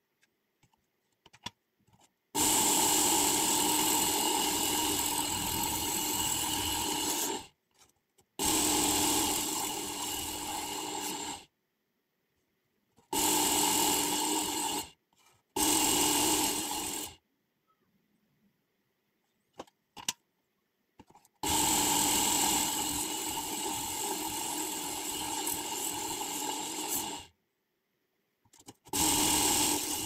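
Work Sharp Ken Onion Edition electric belt sharpener running with a steady whine while the abrasive belt grinds the edge of a folding knife. It runs in six spells of one to six seconds, each starting and cutting off abruptly, with silent gaps between them.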